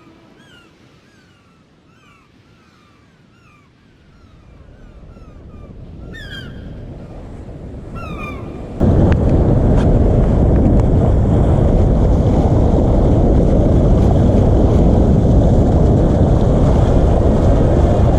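Birds calling in short falling chirps over a faint, swelling rush of noise. About nine seconds in, loud wind and rushing sea water cut in suddenly and hold steady.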